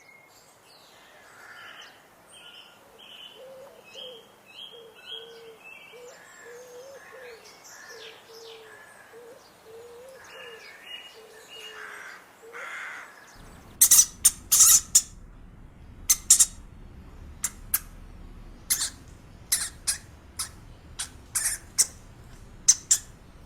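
Bird calls: a run of short, low repeated notes with higher chirps over them. About halfway through it cuts to a different animal giving a series of sharp, shrill squeaks at irregular spacing, louder than the calls before.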